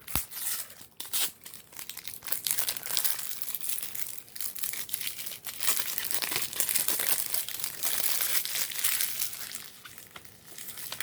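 Plastic shrink-wrap being torn and peeled off a new, unopened CD case, crinkling and crackling throughout, with a sharp click right at the start.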